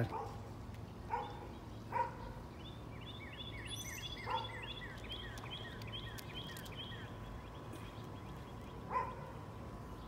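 A bird chirping a quick run of short falling notes, about three a second, for several seconds from about two and a half seconds in. A dog barks a few single times.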